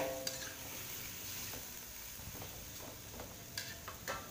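Metal spatula stirring kikil and vegetables in a steel wok: one ringing clang against the pan right at the start, then a few light taps and scrapes.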